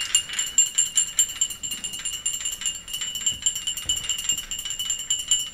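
A ringing sound cue starts suddenly and keeps going: a steady high ringing tone with a fast, even metallic rattle running through it.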